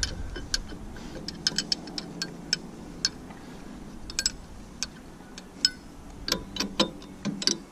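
Light metallic clicks and clinks, irregular and a fraction of a second to a second apart, of a wrench working on JIC hydraulic hose fittings, with a denser cluster of louder clinks near the end.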